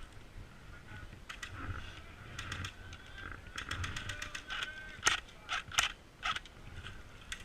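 Airsoft guns firing: scattered single shots, then a rapid full-auto burst of about a second starting around three and a half seconds in, followed by several louder single shots.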